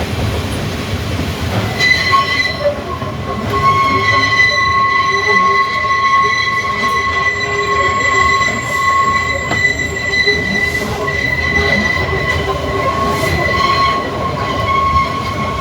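Manx Electric Railway tramcar running on the rails, with a steady high-pitched wheel squeal that sets in about two seconds in and holds almost to the end.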